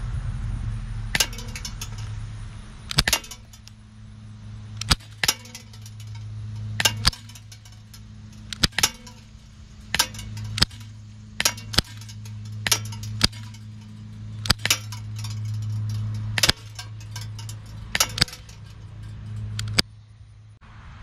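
Umarex Glock 19 non-blowback CO2 BB pistol firing a magazine of .177 BBs, about one sharp shot a second, many followed closely by the metallic clink of the BB striking the steel BB trap. A steady low hum runs underneath.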